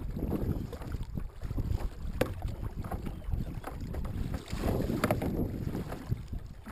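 Kayak paddle strokes, the double blade dipping and splashing on alternate sides in a steady rhythm, over wind buffeting the microphone. A couple of sharp knocks, about two seconds in and again near five seconds.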